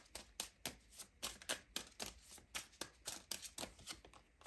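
A deck of tarot cards being shuffled by hand: a quiet run of quick card flicks, about four a second.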